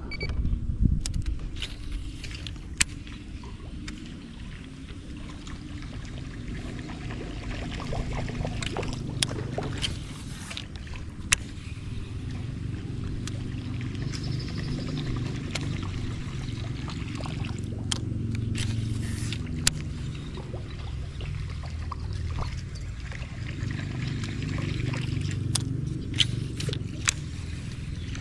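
Low, steady hum of a boat motor running slowly, its pitch drifting up and down, with scattered sharp clicks from the fishing tackle as a lure is cast and retrieved.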